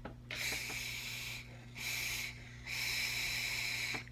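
Hissing draws and breaths while vaping: air pulled through a vape mod, heard as three separate hissy stretches, the last the longest.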